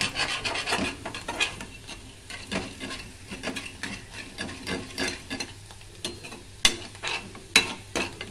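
Ladle stirring and scraping onions frying in oil in a steel kadai: a run of short scrapes and clicks over a sizzle, with a few sharper knocks on the pan in the second half.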